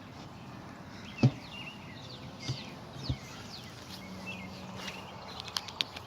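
Small birds chirping in short, gliding calls, with a few sharp knocks, the loudest about a second in, over the low hum of honey bees at an opened hive.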